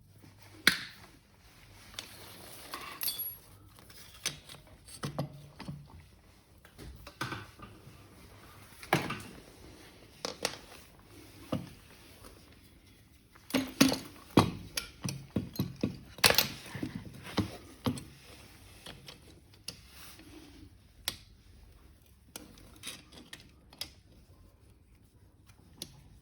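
Irregular knocks, clinks and thuds of tools and metal lamp parts being handled while old industrial lamps are worked on, busiest about halfway through.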